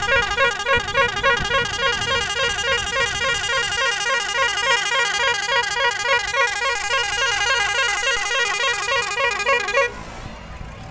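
Bus horn sounding in a rapid, even pulse, about three blasts a second, and cutting off suddenly near the end.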